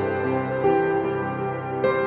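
Ambient instrumental background music: sustained chords that change every second or so.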